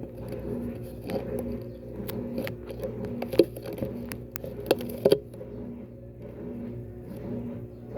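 Electrolux LAC12 12 kg washing machine in its spin cycle: a steady motor hum with a slowly pulsing tone. Several sharp clicks and knocks come between about one and five seconds in, the loudest two in the second half of that stretch.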